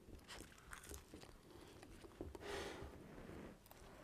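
Faint eating sounds: a few light clicks of a metal spoon in a bowl and soft mouth noises, with one short breathy swell about two and a half seconds in.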